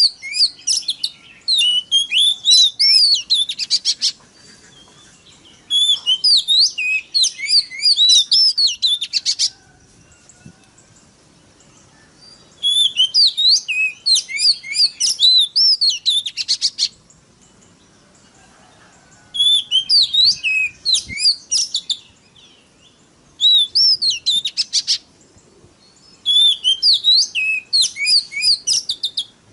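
Oriental magpie-robin (kacer) singing in bursts of a few seconds: fast, varied whistled notes sweeping up and down, each phrase ending in a quick rattling buzz, with short pauses between bursts.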